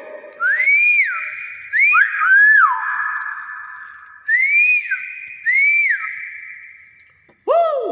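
Hill myna whistling: about five short whistled notes, each rising then falling in pitch, with a louder, fuller call that falls in pitch starting near the end.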